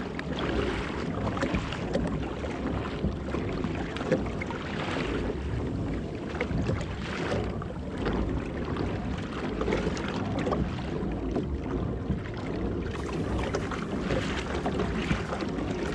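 Wind on the microphone and small ocean waves lapping and slapping against a kayak's hull: a steady rushing with irregular soft splashes.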